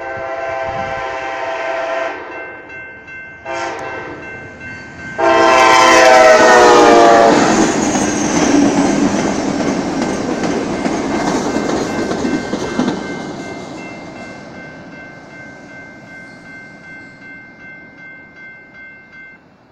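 Amtrak Talgo passenger train sounding its horn for a grade crossing: a long blast, a short one, then a loud final blast whose pitch drops as the locomotive passes. The rumble of the passing train follows and fades as it recedes, and a steady warning tone from the crossing signal sounds throughout, stopping shortly before the end.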